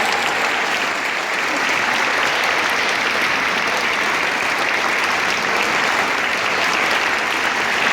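A large concert audience applauding steadily after an orchestra's performance.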